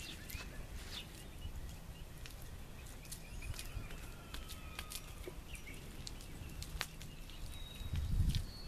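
Outdoor ambience: scattered short bird chirps and a faint high whistled note over a low rumble, which swells louder near the end.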